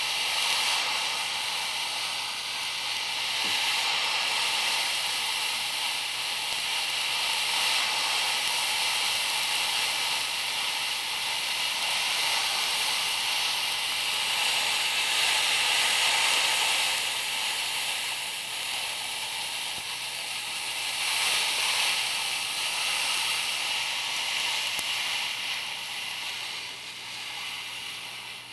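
Ammonium dichromate decomposing in a clay model volcano: a steady hiss as the reaction throws up ash. It swells a little around the middle and fades toward the end.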